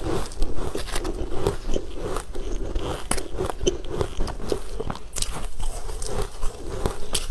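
Close-miked crunching and chewing of refrozen ice, with many small crackles and clicks from chunks being handled in matcha powder.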